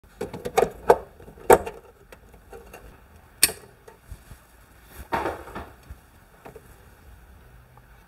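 Plastic clicks and clacks of Schneider IKQ RCBOs being handled and snapped onto a distribution board's DIN rail: a quick cluster of sharp clicks in the first second and a half, another single click about three and a half seconds in, then a short scraping rustle around five seconds in.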